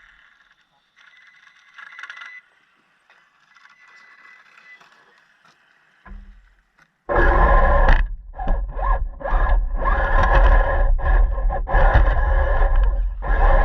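Radio-controlled car running, quiet at first, then a loud rumbling, scraping run that starts suddenly about seven seconds in and drops out briefly several times.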